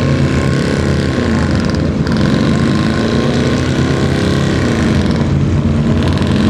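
Pickup truck engine running hard under load as the truck drags a weight-transfer pulling sled, its pitch rising and falling a little in the middle.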